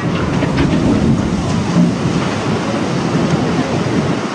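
Cargo ship's hull sliding sideways down the launch ways and smashing into the water in a sideways launch: a loud, continuous rumble mixed with the rush and splash of displaced water.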